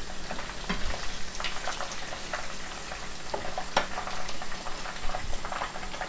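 Hot oil sizzling and bubbling in a frying pan around chicken drumsticks being shallow-fried, with many scattered crackles and sharp pops.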